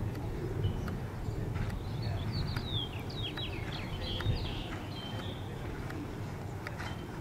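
A songbird sings a quick run of falling whistled notes for about three seconds in the middle. Under it run a low steady rumble and scattered soft knocks of a horse's hooves on the arena footing.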